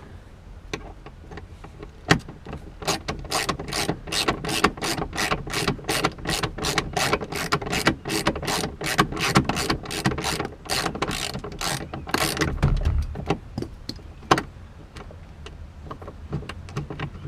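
Socket wrench ratchet clicking quickly and evenly, about four clicks a second, as a 13 mm bolt is backed out, with a few separate knocks before and after.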